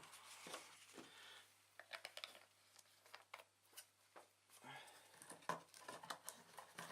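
Faint crinkling and scattered light clicks of parts and paper being handled.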